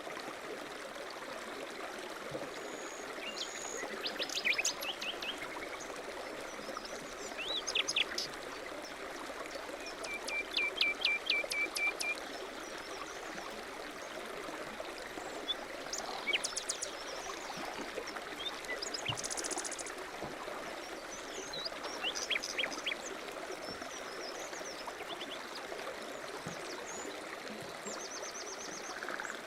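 Running water of a small stream, steady throughout, with small birds chirping and trilling over it now and then, busiest in a quick run of chirps about ten seconds in.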